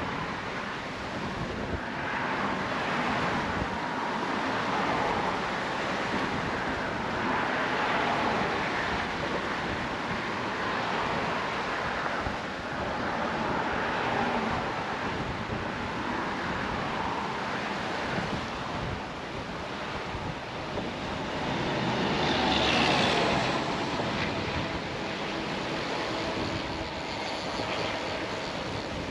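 Wind on the microphone over fast, choppy sea water, a steady rush that swells and eases every few seconds. About two-thirds of the way through there is a louder swell with a faint whine.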